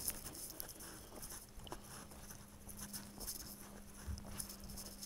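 Footsteps crunching along a dirt trail littered with dry grass and leaves at a walking pace, with a faint steady hum underneath.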